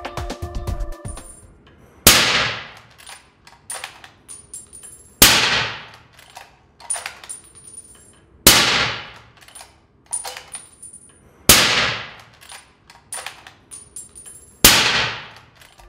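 Five suppressed rifle shots through an SWR Specwar 762 suppressor, about three seconds apart. Each is a sharp crack that trails off in a long echo, with a few small clicks between shots.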